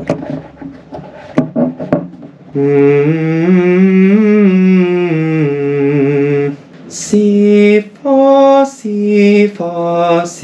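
A man humming a vocal warm-up: after a couple of seconds of small knocks and rustling, one long held note that slides gently up and back down, then four short held notes in a row.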